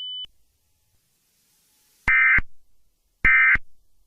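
A steady high electronic tone cuts off just after the start; then, after a pause, two short buzzy data bursts about a second apart: the Emergency Alert System's SAME end-of-message code bursts that close an alert.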